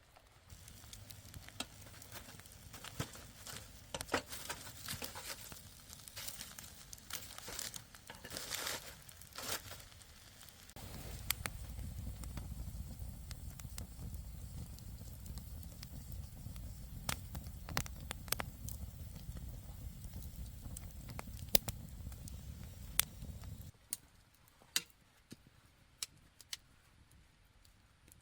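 Campfire crackling with many sharp pops, mixed with rustling and crinkling handling sounds. A low rumble joins about eleven seconds in and stops abruptly a few seconds before the end.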